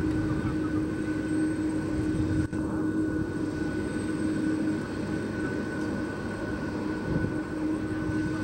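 Airbus A300-600ST Beluga's twin GE CF6-80C2 turbofans at taxi power, a steady jet whine over a low rumble, with a short break about two and a half seconds in.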